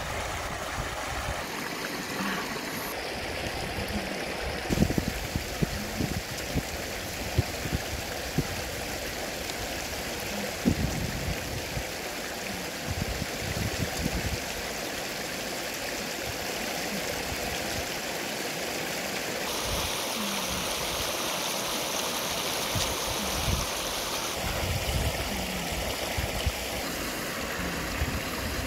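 Shallow river rushing over rocks in a steady wash, with short low smacks of chewing close to the microphone now and then.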